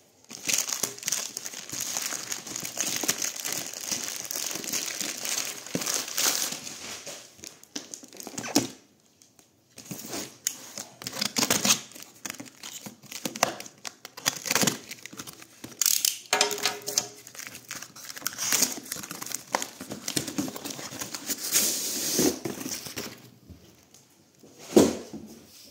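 Plastic mailer bag crinkling and tearing as it is pulled off a cardboard box, then scissors and ripping packing tape and cardboard as the box is cut open. A sharp knock comes near the end.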